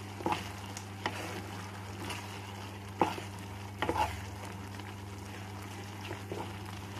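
Wooden spatula stirring wet Maggi noodles and peas in a coated kadhai on the gas. A few short knocks and scrapes of the spatula against the pan stand out, the loudest about three seconds in and again a second later, over a steady low hum.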